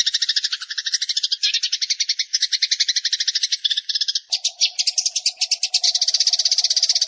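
Dense, rapid chattering calls of Eurasian tree sparrows mixed with the calls of the platuk beras (Sunda pygmy woodpecker), as fast, even, unbroken pulses. The mix changes character a few times, and a lower buzzing layer joins about four seconds in.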